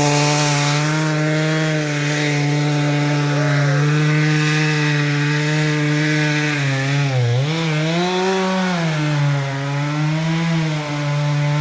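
Chainsaw running steadily while cutting wood, its pitch sagging and recovering about seven to nine seconds in as the saw takes load.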